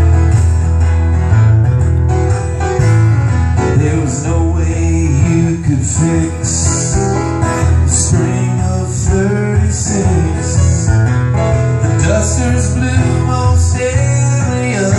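Live acoustic music: a strummed acoustic guitar and piano playing a song, with a voice singing in parts.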